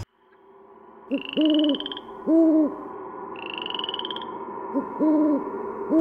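Owl hooting: a short hoot followed by longer ones, in two groups, with a high pulsing trill heard twice between them.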